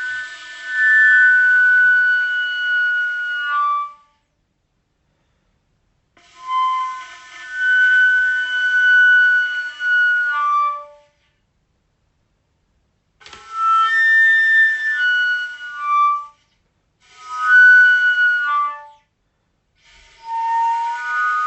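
Music: a flute-like wind melody of held notes, played in five short phrases separated by complete silences, each phrase ending with a slight downward slide in pitch.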